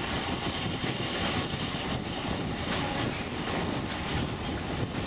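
Narrow-gauge train running along the track, heard from its open-air upper deck: a steady rumbling running noise of the car on the rails.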